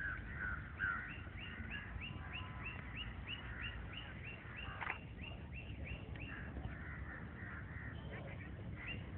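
A bird calling over and over in short high notes, about two a second. Other birds chirp at a lower pitch, over a steady low rumble.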